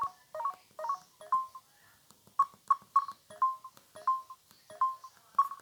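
Samsung SGH-M150 mobile phone sounding a quick run of short electronic beeping notes through its small speaker, a few per second, with a brief gap about a second and a half in.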